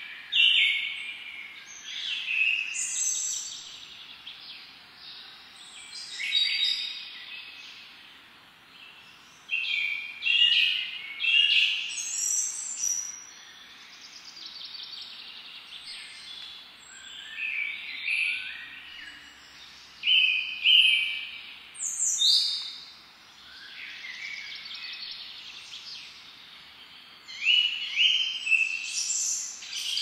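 Woodland songbirds singing: short high phrases of chirps and trills every second or two, some overlapping, with a few quieter gaps. A faint steady hiss of outdoor background lies underneath.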